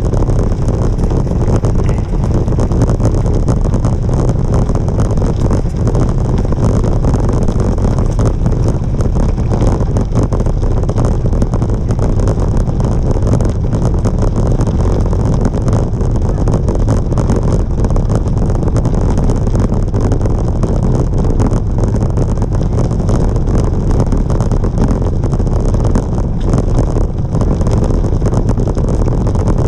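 Wind buffeting the microphone of a moving bicycle rider: a loud, steady low rumble.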